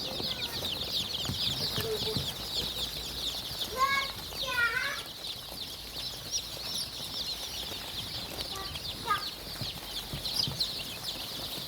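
Chickens on a farm: many chicks peeping together in a dense, continuous high-pitched chorus. A few lower, louder clucking calls stand out about four to five seconds in and again near nine seconds.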